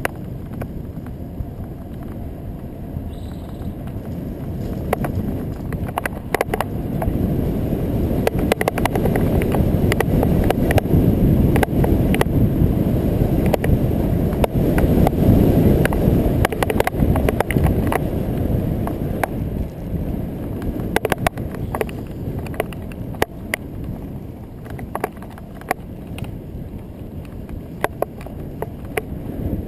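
Wind rumbling over the microphone of a camera on a moving bicycle, swelling to its loudest about halfway through and then easing off, with scattered sharp clicks throughout.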